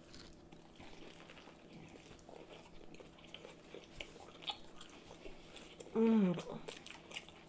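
Two people chewing bites of crispy fried chicken sandwiches: faint crunching and wet mouth sounds. A short voiced sound with a falling pitch comes about six seconds in.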